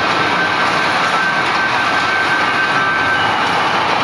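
Small kiddie track-ride train cars rolling along a tubular steel rail track: a steady, even noise of wheels running on the rails. A thin high tone runs over it and stops about three seconds in.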